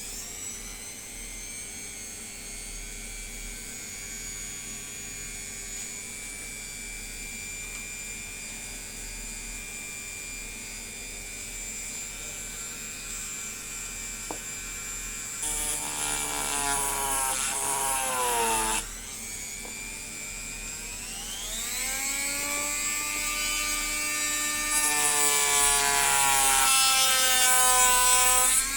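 High-speed small electric motor whining steadily. About 15 seconds in it gets louder and its pitch slides down until it cuts off abruptly, then the pitch climbs again and it runs loud to the end.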